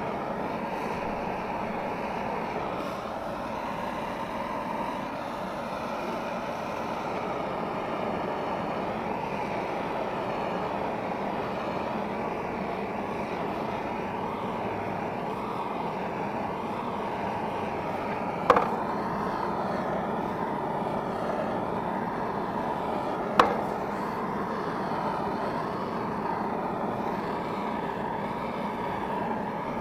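Handheld propane blow torch burning with a steady rushing hiss as its flame scorches a strip of wood trim to darken and age it. Two sharp clicks come about two-thirds of the way through, five seconds apart.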